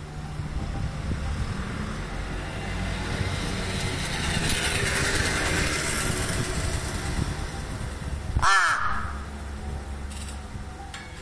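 A crow gives one short, harsh caw about eight seconds in. Before the call, a rushing background noise swells and then fades.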